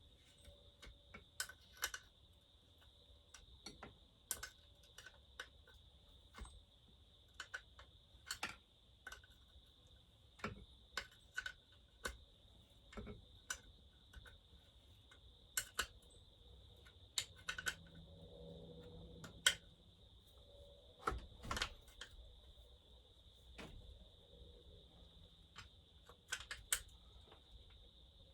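Irregular light clicks and knocks of hand tools against metal and plastic chainsaw parts during bench reassembly of a McCulloch 800-series chainsaw.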